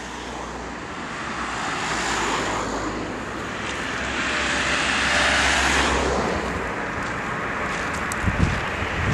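Road traffic noise: a car approaches and passes, loudest about five or six seconds in. A couple of short knocks come near the end.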